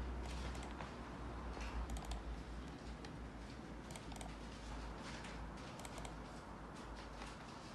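Faint light clicks from a computer mouse, coming in quick pairs and threes as files are double-clicked open, over a low steady hum.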